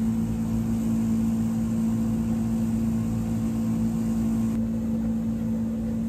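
Steady low mechanical hum of a motor or engine running, holding one pitch throughout.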